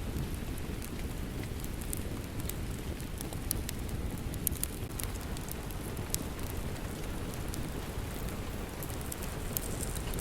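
Steady rain with a deep, even hiss, mixed with a wood fire crackling in scattered sharp snaps.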